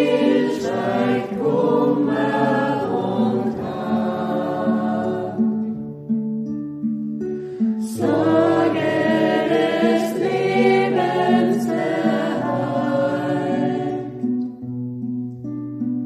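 Background music: a choir singing a slow piece in phrases over sustained low notes, a new phrase starting about halfway through.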